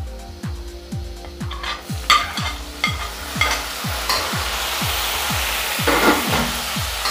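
Chopped tomato sizzling in hot oil with light-brown fried onions in a kadhai, the hiss swelling about two seconds in, with a ladle clicking against the pan as it is stirred. A steady beat of background music runs underneath.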